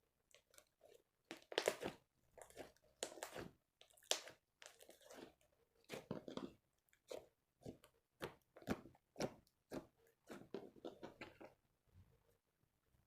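Clear slime with glitter and makeup mixed in, being squeezed and stretched by hand: irregular short wet clicks and squelches with brief gaps, stopping shortly before the end.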